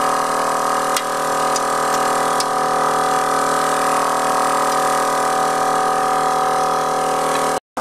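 A machine drones steadily at an unchanging pitch, with a few faint clicks in the first couple of seconds as a long wrench is worked on the wheel nuts. The drone cuts off abruptly near the end.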